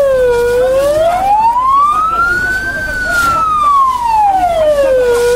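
Emergency vehicle siren in a slow wail: its pitch climbs for about two and a half seconds and falls back down, one full rise and fall.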